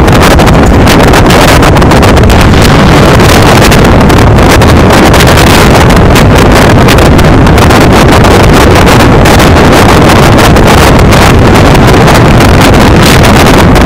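Heavy wind buffeting the microphone on the open back of a moving flatbed truck: a loud, steady rush with rapid flutter and no pauses.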